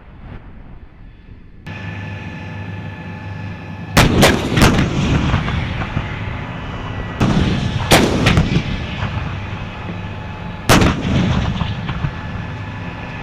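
M109 self-propelled howitzers firing: three loud shots, about four seconds in, again about four seconds later and near the end, each trailing off in a long rumble. Between the shots a vehicle's engine runs steadily.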